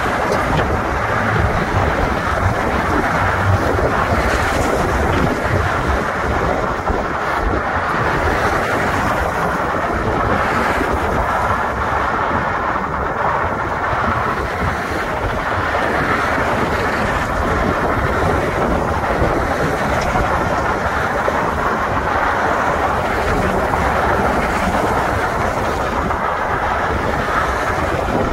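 Steady wind rushing over the microphone of a moving bicycle, with car traffic running on the roadway alongside.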